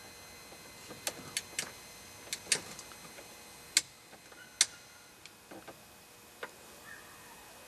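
Irregular sharp clicks in a car's cabin, several close together in the first half and a few fainter ones later, as the ignition key and switches are worked, over a faint steady high electronic whine that stops about five seconds in.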